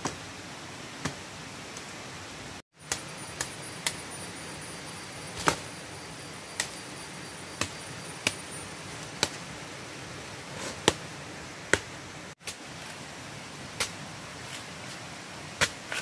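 Machete chopping into a woody plant stem: sharp single chops at uneven intervals, roughly one a second, over a steady forest hiss. The sound drops out briefly twice.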